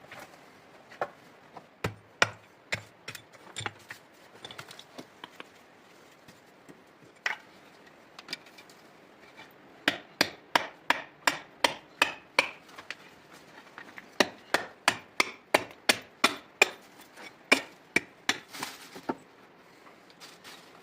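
Wood being struck with a hand tool: sharp knocks, scattered at first, then two fast runs of about three strikes a second with a short pause between them.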